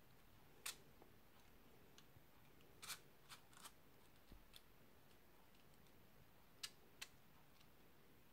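Near silence, broken by several faint, sharp clicks and taps spread irregularly through it.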